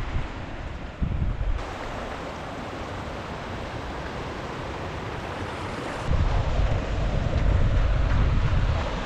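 Wind buffeting the microphone in gusts over a steady rush of water.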